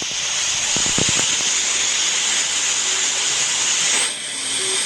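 A steady, loud hiss with most of its energy high up. There are a few faint low thuds about a second in, and the hiss dips briefly near the end.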